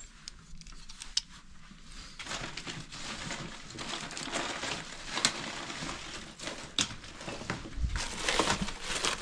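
Rummaging through cardboard boxes of mixed items: cardboard and plastic rustling and crinkling, with light clicks and knocks of objects being handled. It gets busier after about two seconds.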